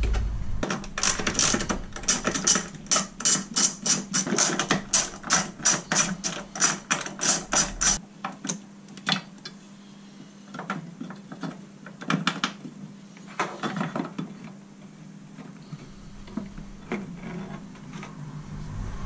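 Ratchet wrench clicking as a bolt holding the horn bracket is loosened: a rapid, even run of clicks for about seven seconds, then fewer scattered clicks and light knocks.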